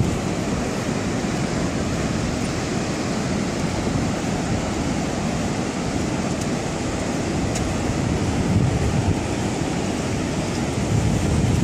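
Steady rush of ocean surf breaking on a sandy beach, with wind gusting on the microphone.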